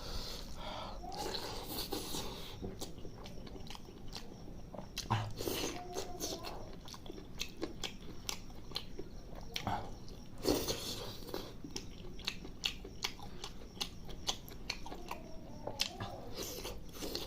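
Close-up chewing and biting of chicken liver curry with rice: many short, irregular mouth clicks and smacks.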